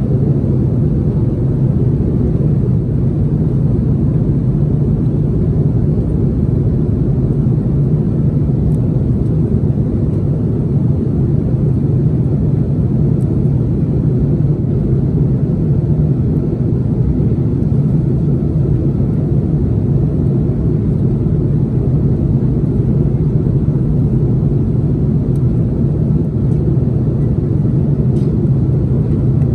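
Steady cabin noise of an Airbus A330-300 airliner in flight: a constant low rumble of engines and rushing airflow.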